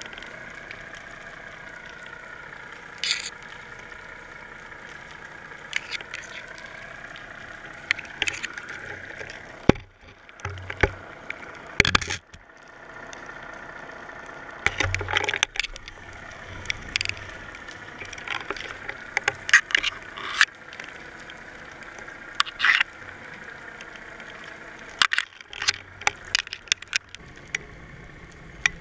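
Muffled underwater sound from a GoPro housing on a fishing line: a steady hum that wavers slowly in pitch, with many sharp knocks and clicks scattered through it, coming in clusters.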